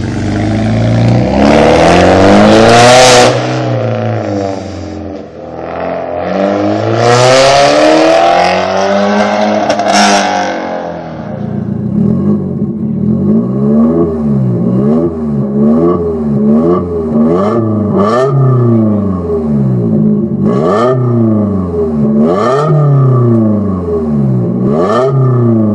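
BMW 318ti four-cylinder with a straight-through exhaust (catalytic converter kept) revved up and down twice in long, loud sweeps. After that, a BMW 318is four-cylinder is blipped quickly over and over at the tailpipe, with a few sharp cracks as the revs drop.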